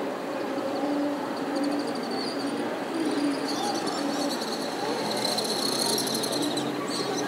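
City ambience heard from an upper-floor apartment window: a steady wash of distant traffic and street noise, with a recurring low steady tone. High chirping runs through the middle of it.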